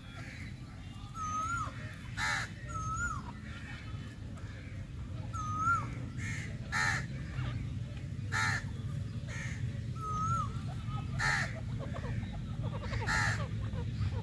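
Grey francolins calling: short harsh calls every second or two, between short whistled notes that rise and then fall.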